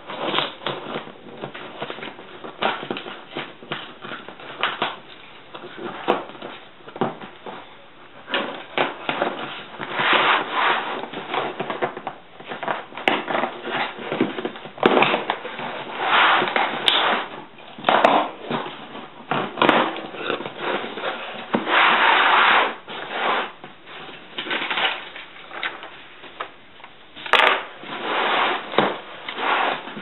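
Cardboard shipping box being opened by hand: packing tape slit and peeled, and cardboard flaps scraping and crinkling in irregular bursts.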